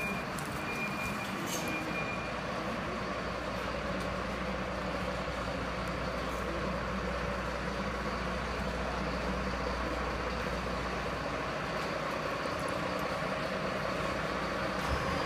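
Fire engine's engine idling, a steady low rumble with an even hiss over it that does not change.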